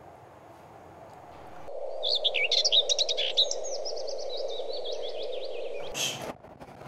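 Birds chirping in quick runs of short, high calls over a steady background hum, coming in about two seconds in and cutting off abruptly near the end, followed by a brief burst of noise.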